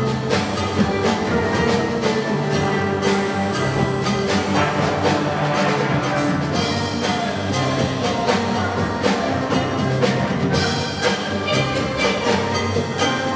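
Steel band playing: many steel pans struck in quick succession over low bass-pan notes, continuous music.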